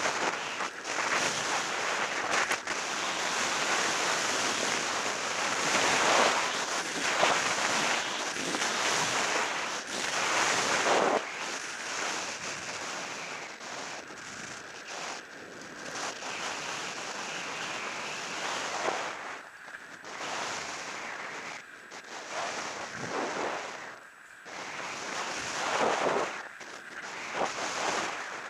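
Skis hissing and scraping over packed piste snow during a downhill run, mixed with wind rushing over a helmet-mounted camera's microphone. The noise rises and falls in swells every few seconds.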